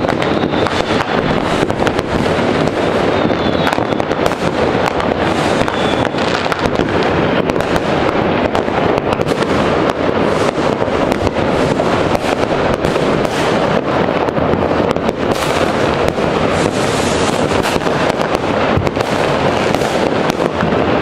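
Many New Year's Eve fireworks and firecrackers going off at once: a dense, unbroken crackle packed with sharp bangs. A few brief high whistles from rockets come in the first few seconds.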